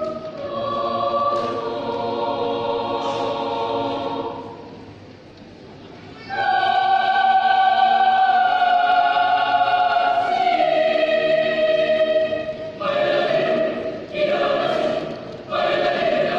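Mixed choir singing a German Romantic choral piece in long sustained chords. After a softer passage around five seconds in, a loud long-held chord steps down in pitch about ten seconds in, followed by shorter, broken phrases.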